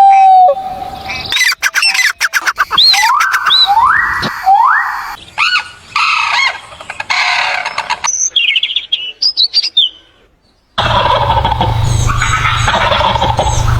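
A run of short, separate clips of animal calls, mostly birds chirping and calling with quick rising notes and clicks. A held tone dies away right at the start, there is a brief gap about ten seconds in, and a noisier clip with a low hum follows.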